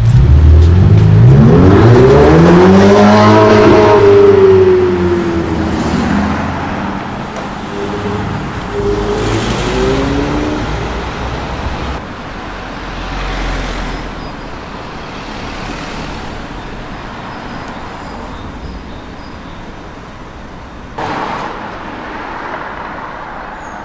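Ferrari 488 Pista's twin-turbo V8 accelerating hard: the engine note climbs steeply for about four seconds, then drops away, with a shorter rev around ten seconds in. After that, quieter traffic noise, with a brief sudden noise near the end.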